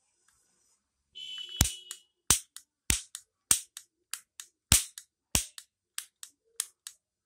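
Die-cast metal toy ring cap gun being worked: a short scraping rattle, then about nine sharp snaps of the hammer in a steady rhythm, a little under two a second, each followed by a lighter click.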